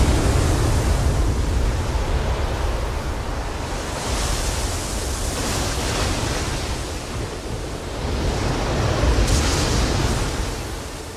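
Heavy surf on a stormy sea: waves breaking and rushing in with wind and a deep rumble, swelling about four seconds in and again more strongly about nine seconds in, then dying away near the end.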